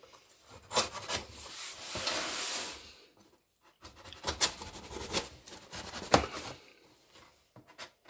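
Kitchen knife slitting the packing tape on a cardboard box: a scratchy tearing rasp from about one and a half to three seconds in, then, after a short pause, several short scrapes and taps of the blade and hands on the cardboard.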